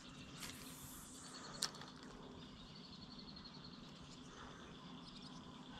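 Quiet outdoor ambience: a faint steady hiss, with a soft, rapid high-pitched chirping trill for about two seconds from a second in. There is also a single light click about a second and a half in.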